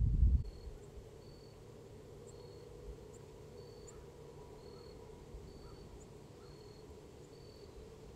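Insects chirping: short high chirps repeating about every 0.7 seconds over a faint steady hum. A loud low rumble cuts off about half a second in.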